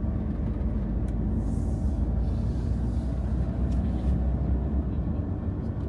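Steady low rumble of a car's tyres and engine heard from inside the cabin while driving, with a few faint light ticks.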